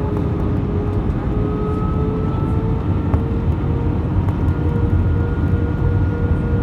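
Airbus A320 cabin noise on approach: a steady rush of airflow and jet-engine hum, with the engine tones holding steady and creeping slightly up in pitch.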